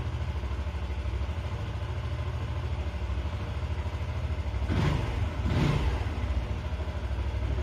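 Zontes U1 125's single-cylinder engine idling steadily in neutral, with two short bursts of noise a little past halfway.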